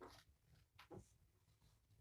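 Near silence with two faint, brief rustles about a second apart, kittens clambering over a person's clothes.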